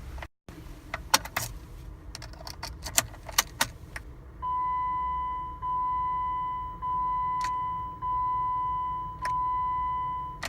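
Car keys jangling and clicking, then the car's electronic warning chime: a steady mid-pitched beep repeating about every 1.2 seconds, five times.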